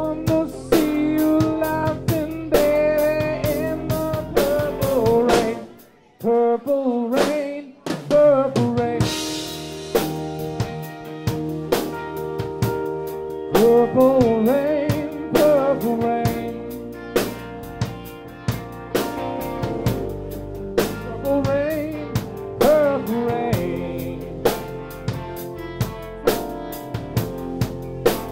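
Live rock band playing a slow ballad: drum kit with sliding melody lines over bass and chords. About six seconds in the band drops almost to silence for roughly two seconds, then comes back in with a drum hit and a cymbal crash.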